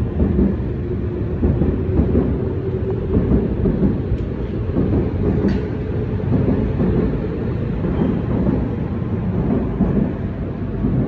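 A train running along the elevated railway viaduct overhead: a steady low rumble, with a faint hum that fades about three seconds in and two light clicks midway.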